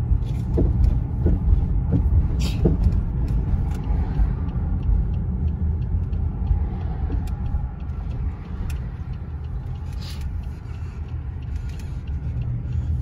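Steady low road and engine rumble heard inside a moving car's cabin, with a few light ticks in the first few seconds. The rumble eases a little past the middle as the car slows.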